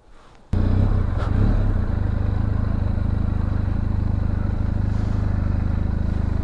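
Benelli TRK 502X motorcycle's parallel-twin engine idling steadily and loudly, a low even pulsing that starts abruptly about half a second in.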